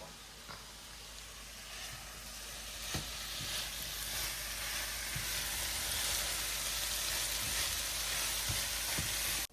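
Bitter melon (karela) sizzling as it fries in a pan, a steady hiss that grows gradually louder, with a few light clicks scattered through it. It cuts off suddenly at the end.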